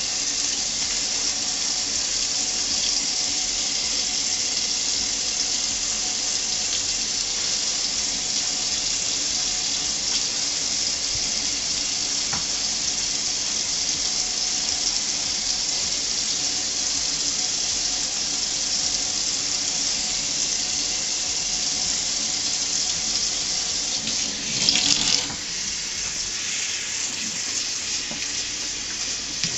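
Water running steadily from a kitchen faucet into a stainless-steel sink, splashing over shampooed hair as it is scrubbed and rinsed under the stream. A brief louder splash comes near the end.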